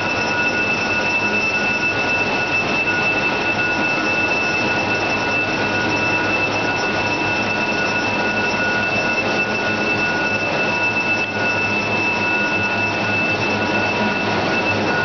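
Fourdrinier paper machine running in the mill: a loud, steady machinery noise with several constant high-pitched whines on top.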